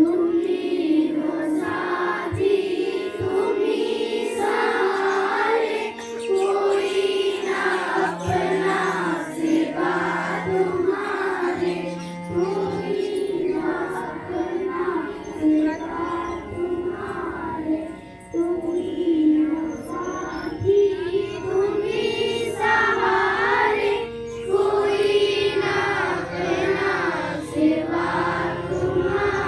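A group of children singing a slow song in unison, a steady sung melody that goes on with only brief breaths between phrases.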